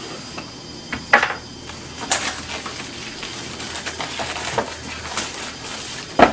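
Plastic shrink wrap crinkling and tearing as it is pulled off a cardboard box, with a few sharper clicks and knocks, the loudest about a second in and at the very end.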